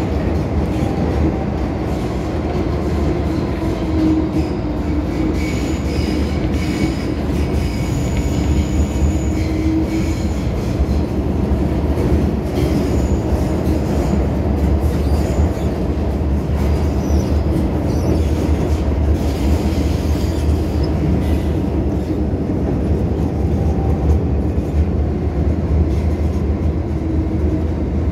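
MTR M-Train (Metro Cammell electric multiple unit) heard from inside a passenger car as it runs through the tunnel, with a steady loud rumble of wheels on rail. High wheel squeal comes and goes in the first half. By the end the train is at the station platform.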